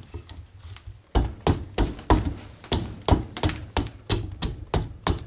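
Small carving axe hewing a green black walnut branch on a wooden chopping block. After a few light taps, a steady run of sharp chopping strikes starts about a second in, about three a second.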